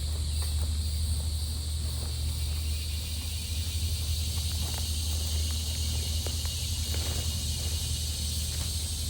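Outdoor ambience: a steady high insect drone over a low rumble, with scattered light clicks.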